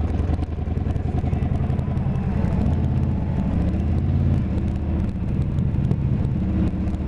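Harley-Davidson bagger's V-twin engine running at road speed, heard from the saddle. Its pitch dips and rises once a few seconds in.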